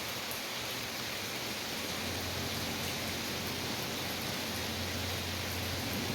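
Steady rain, an even hiss with faint scattered drop ticks. A low steady rumble joins it about two seconds in.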